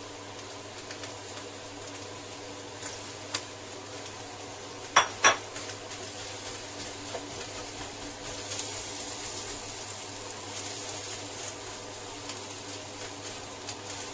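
Fried rice being stir-fried in a wok: two sharp clinks of the spatula about five seconds in, then the spatula scraping and tossing the rice with a light sizzle from about eight seconds in. A steady hum runs underneath.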